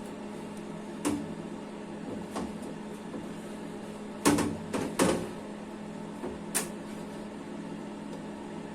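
A few sharp knocks and clatters of a small amplifier box being handled and turned around on a bench, the loudest two about four and five seconds in, over a steady low hum.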